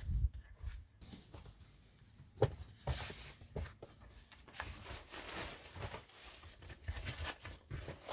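Irregular rustling and crinkling with light clicks and knocks, like things being handled close by, with a low thump at the start and sharper knocks about two and a half to three seconds in.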